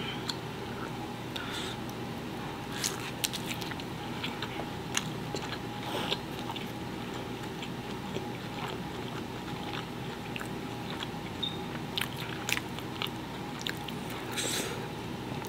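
Close-miked mouth sounds of a person chewing a bite of consommé-dipped birria pizza, with irregular wet clicks and smacks. Near the end comes a short rustling tear as a cheesy slice is pulled away from the pizza.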